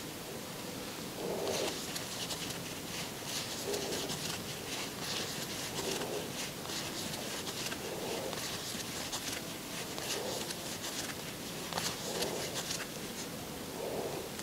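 Faint rustling and scratching of a crochet hook working yarn close to a clip-on microphone, with soft breaths about every two seconds.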